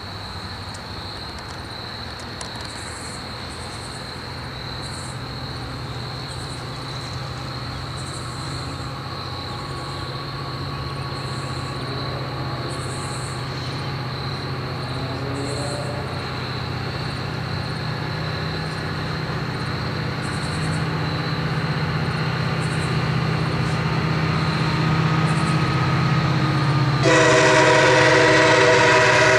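MARC commuter train approaching on the railroad, a low rumble growing steadily louder. Near the end its horn starts a loud, held blast of several notes at once.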